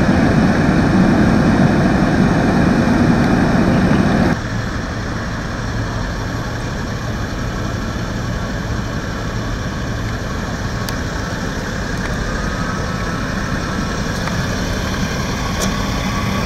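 Fire-department ambulance and fire engine idling: a steady low engine rumble, louder for the first four seconds, then dropping abruptly to a quieter steady rumble.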